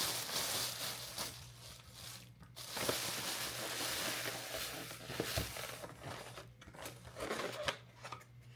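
Takeout paper packaging rustling, crinkling and tearing as the food is unpacked, with a few sharp clicks and knocks along the way.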